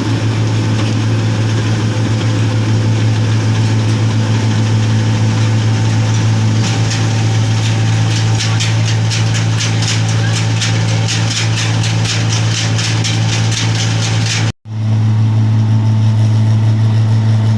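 New Holland combine harvester's diesel engine running steadily. From about a third of the way in, a fast, regular clatter runs with it. The sound cuts out completely for a moment near the end, then the engine continues.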